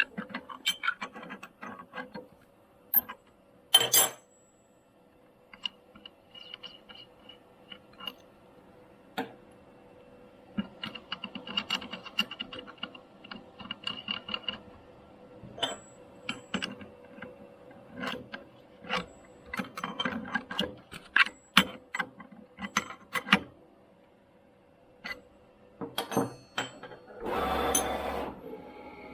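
Tomahawk Pro CNC machine milling a plate: a steady hum under irregular clicks and ticks, with a high tone coming and going. A loud burst of hiss near the end.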